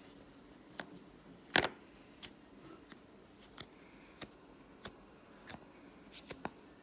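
Blue slime in a plastic tub being poked and pressed with a finger, giving about a dozen short, sharp sticky clicks and pops at irregular intervals. The loudest is a double click about one and a half seconds in.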